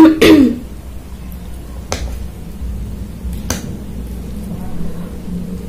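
A woman's brief vocal sound at the start, then a metal fork clicking twice against a ceramic plate as she eats, over a steady low hum.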